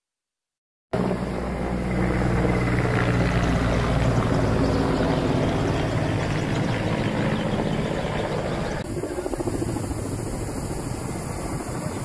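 Firefighting helicopter's engine and rotors running steadily, starting suddenly about a second in. Near nine seconds the sound cuts to a rougher, fluttering engine noise.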